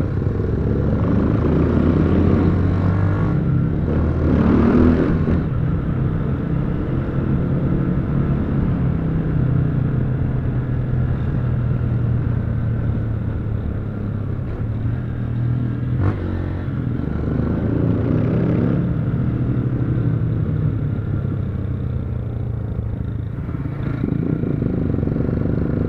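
Honda XRE single-cylinder motorcycle engine running steadily while riding. There are two brief rushes of noise, and one sharp pop about two-thirds of the way through.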